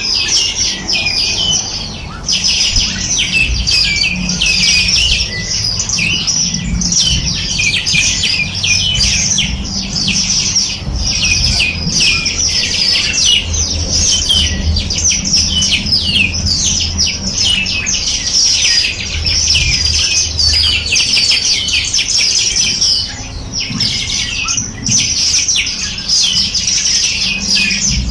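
A dense chorus of many small songbirds chirping and twittering over one another without pause, over a low steady hum.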